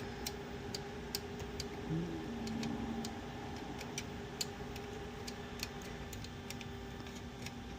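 Irregular small sharp clicks and taps from a Remington 5 typewriter's metal parts being handled and worked loose, over a steady low hum.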